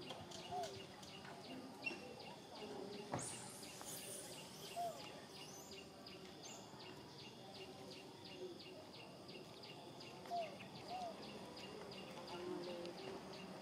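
Faint outdoor ambience of insects chirping in a steady, fast, even rhythm. A few short soft squeaks come now and then, and there is one brief knock about three seconds in.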